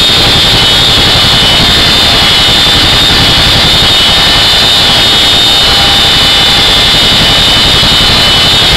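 CH-47 Chinook helicopter's twin turboshaft engines and rotor drive running in flight, heard loud inside the cabin as a dense, unbroken roar with a steady high whine over it.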